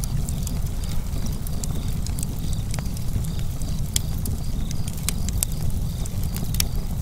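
Wood fire burning: scattered sharp crackles and pops over a steady low rumble.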